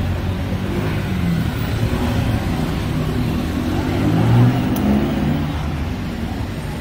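Street traffic with a motor vehicle's engine passing close by. It grows louder to a peak about four and a half seconds in, then fades back into the general road noise.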